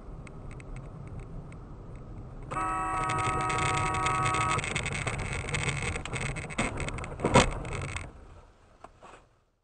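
Low road and engine rumble heard from inside a car driving on snow. About two and a half seconds in, a car horn sounds for about two seconds over louder noise, and near the end comes a single sharp thump, the loudest sound, before everything cuts off.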